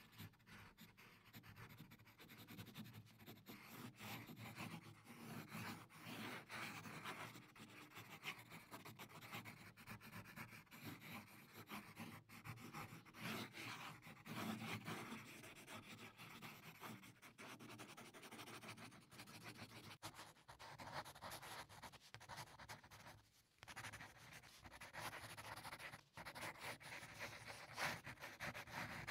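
Pencil lead scratching and rubbing on paper in quick, uneven shading strokes, faint and close, with a couple of brief pauses late on.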